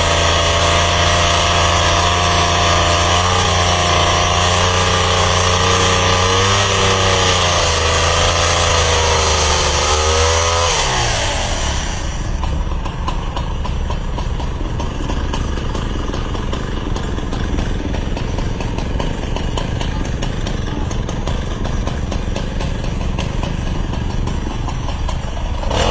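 A small engine running, its pitch wavering up and down, until about ten seconds in. After that a rougher, noisier steady sound without a clear pitch takes over.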